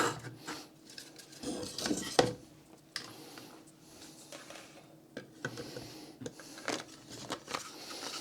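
Scattered small clicks and knocks of hand work with small screws and a little screwdriver on a plywood switch box, irregular, with the sharpest click at the start and another about two seconds in.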